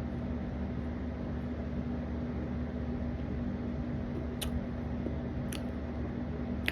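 Steady low fan-like hum in a small room, with three faint short clicks in the second half.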